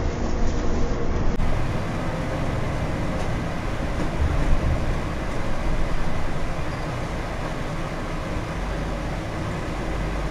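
Bus engine and road noise heard from the driver's seat while driving: a steady low rumble, with a brief break about a second in where the recording cuts to another drive.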